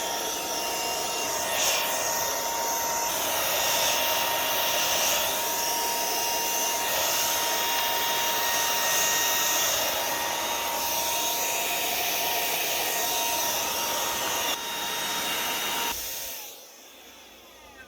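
Small vacuum cleaner running steadily with a constant motor whine, sucking dust out of the inside of an antique typewriter; the hiss of the suction shifts now and then, and the motor switches off and winds down near the end.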